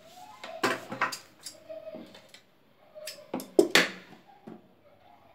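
Large steel tailor's scissors snipping through elastic cord and being handled, giving sharp clicks in two clusters, about a second in and again a little after three seconds, the loudest snip near four seconds.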